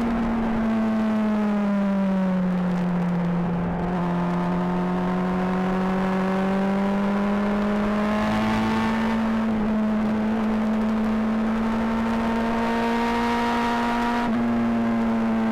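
Honda CBR600RR's inline-four engine heard close at the exhaust while riding: the note falls over the first three seconds, then climbs slowly under throttle, stepping down briefly twice, about nine and a half and fourteen seconds in.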